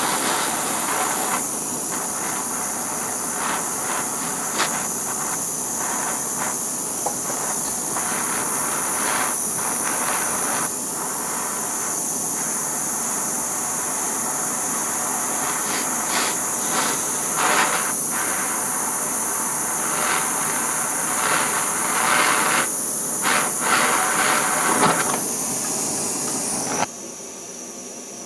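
Handheld Bernzomatic propane torch burning steadily with a fluttering hiss as it heats a hardened steel tool blank to temper it blue. The flame sound cuts off abruptly near the end.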